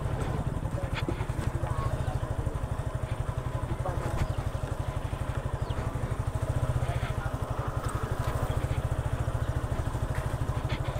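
Motorcycle engine running steadily while riding, with an even, rapid exhaust beat and a few light clicks.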